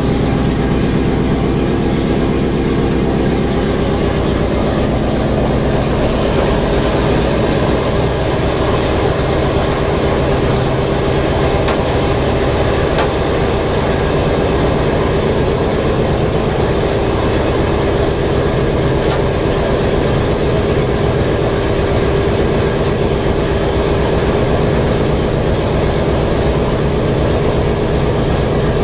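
Boeing B-17 Flying Fortress's Wright R-1820 Cyclone nine-cylinder radial engines running, heard from inside the bare aluminium fuselage as a loud, steady drone with a fast, even throb.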